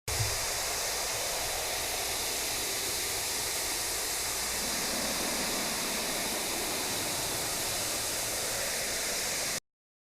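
Waterfall rushing: a steady, even roar of falling water that cuts off suddenly near the end.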